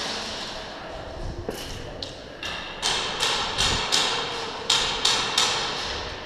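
Airsoft gunfire: a string of about eight sharp, separate pops, each with a short ringing tail, starting about a second and a half in.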